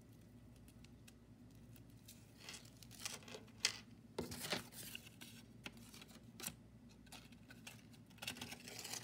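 Faint rustling and light clicks of Froot Loops cereal rings being threaded onto a string and slid along it, in scattered short bursts from about two and a half seconds in.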